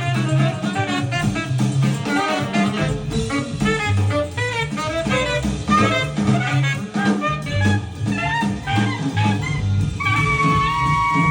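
Jazz music with a bass line moving note by note under a melody, played back through Cabasse Minorca MC40 three-way bookshelf speakers. About ten seconds in, a chord of held notes comes in.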